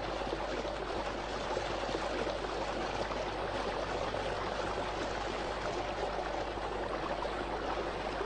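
Steady rushing of a fast-flowing torrent stream: even, broad water noise with no distinct notes standing out.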